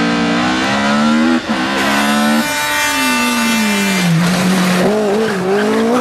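Opel rally car engine revving hard through the gears, with a quick gear change about a second and a half in. The engine note then falls away for a couple of seconds under a steady tyre squeal before it revs up again near the end.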